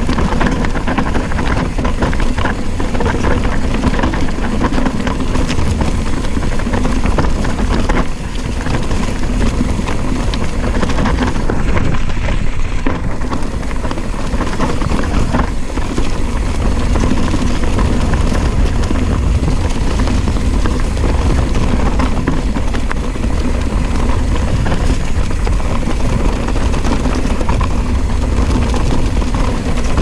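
Mountain bike descending a loose, rocky dirt trail at speed: a steady loud rush of wind on the microphone mixed with tyre noise on the dirt. There is a short dip in level about eight seconds in.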